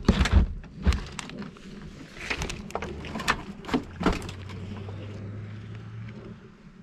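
A run of irregular sharp knocks and crackles, loudest in the first second and again a couple of seconds in, then a low steady hum for a few seconds.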